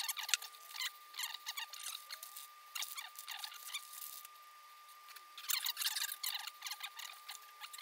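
Crinkling of a plastic zip-top bag and small clicks and rustles as pepperoni slices are taken out and laid on a pizza, busiest a little past halfway. A faint steady high whine runs underneath.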